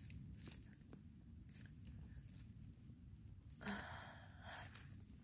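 Faint crackling and rustling of forest duff and soil as a buried mushroom is dug out by hand, with a short, louder scuffle about three and a half seconds in.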